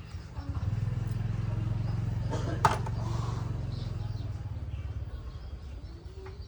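A motor or engine running steadily at a low pitch with a fine even pulse. It swells about a second in and eases off toward the end, with one sharp click partway through.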